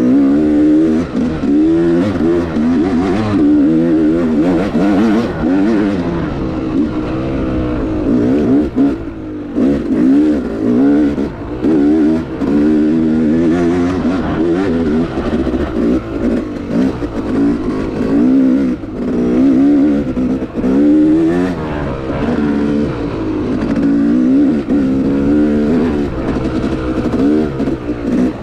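Yamaha YZ250X two-stroke single-cylinder dirt bike engine being ridden, its pitch rising and falling over and over as the throttle is opened and closed.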